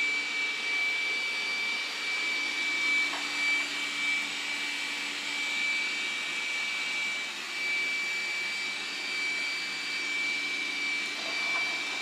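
Dreametech D10 Plus robot vacuum running, a steady whir of its suction fan with a high whine over it, as it drives across a hard floor.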